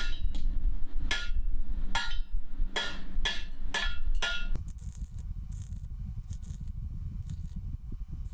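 Hammer blows on steel plate, sharp ringing strikes about two a second, closing up the pie cuts in the fire pot's steel. About halfway through they stop and give way to quieter, rhythmic metal scraping strokes, about two a second.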